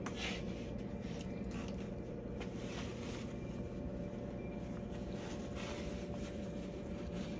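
A steady low mechanical drone, with a faint steady tone in it, from running equipment. Over it come a few faint light knocks and rustles as hands work at a metal test box and handle a cloth rag.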